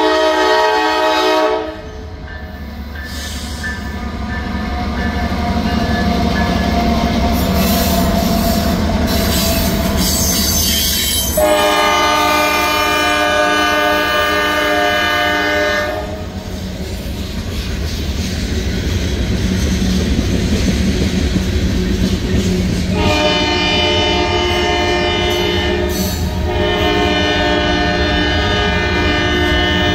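Norfolk Southern freight train's locomotive horn blowing for a grade crossing, a chord of several notes: a long blast that ends about two seconds in, another long one from about 11 to 16 seconds, then a shorter blast and another long one near the end. Between the blasts the diesel locomotives rumble past and the freight cars roll by with a clickety-clack of wheels on rail.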